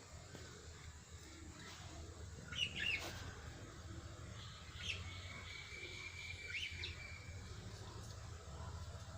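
Pet budgerigars chirping and warbling in short scattered calls, the loudest a couple of seconds in, over a faint steady low hum.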